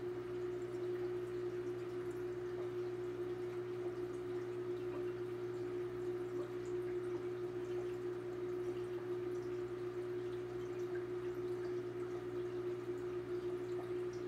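Aquarium equipment humming steadily at one pitch, with a faint trickle of water.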